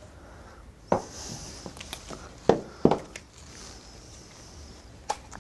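Sharp clicks and knocks of a socket and parts being handled at a small mower engine: one about a second in, two loud ones close together about two and a half seconds in, and a lighter one near the end.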